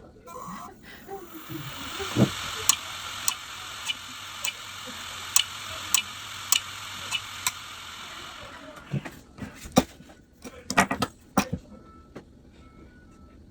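Failing hard disk drive running with a steady hiss, its read/write heads knocking in an even click about every 0.6 s: the head-click sound of a damaged drive. Near the end the hiss stops and a few louder knocks follow.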